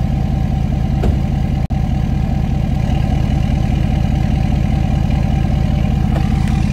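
Ford 6.7 L Power Stroke V8 turbodiesel idling steadily through a deleted, straight-piped exhaust: an even, low, pulsing exhaust note from the dual tips, with a momentary dropout in the sound about one and a half seconds in.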